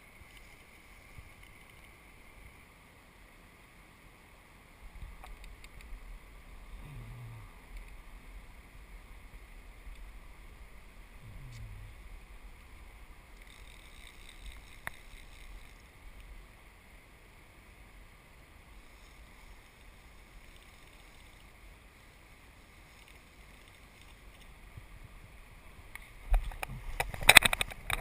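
Faint, steady wash of flowing river water with a low rumble of wind on the microphone. A burst of loud, rough noise starts near the end.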